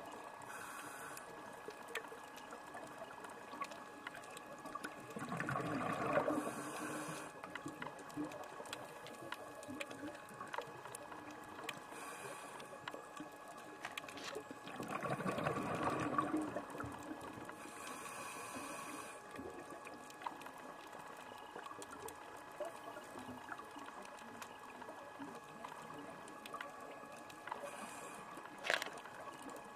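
Scuba diver's regulator heard underwater: short hisses of inhaling every several seconds, and two longer gurgling rushes of exhaled bubbles about five and fifteen seconds in, over a faint steady crackle.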